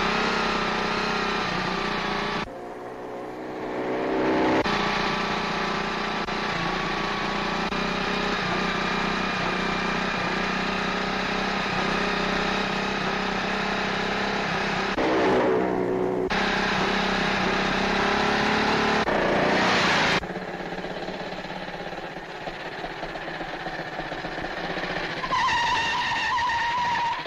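Motorcycle and car engines running at speed, with the engine sound jumping abruptly in pitch and level several times.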